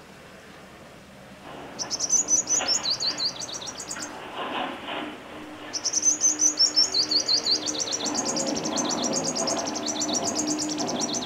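A small songbird singing high, fast twittering phrases. The song starts about two seconds in, breaks off for a couple of seconds, then resumes and runs on as a rapid string of repeated notes.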